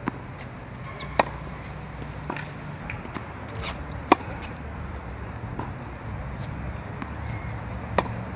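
Tennis racket striking a tennis ball in a rally: sharp pops, the strongest at the start, about four seconds in and near the end. Fainter ball hits and bounces fall between them.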